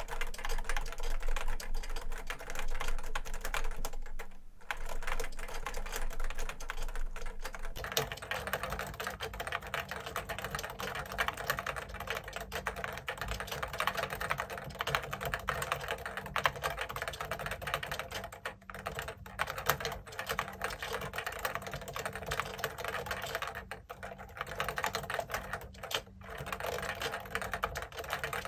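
Typing on a JUKI Celavi FK212-JS keyboard with Topre Hipro switches on 25 g domes, set on two stacked desk mats: a steady run of keystrokes with a few brief pauses. About eight seconds in, the sound changes as the recording switches microphones and becomes fuller in the bass.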